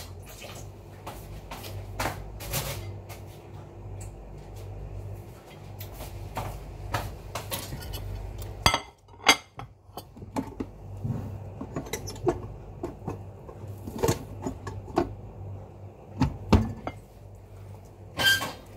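Dishes and utensils clinking and knocking now and then as rice is served, with a cluster of sharper knocks near the end as a plastic rice paddle scoops rice onto a plate.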